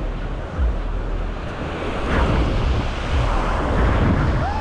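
Sea waves breaking and washing on the shore, with gusty wind buffeting the microphone as a low rumble.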